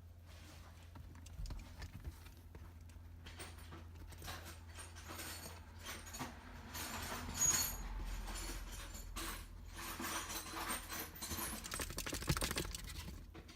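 Irregular clicks, taps and rattles of small parts and wiring being handled under a car's steering column, busier and louder in the second half, over a faint steady low hum.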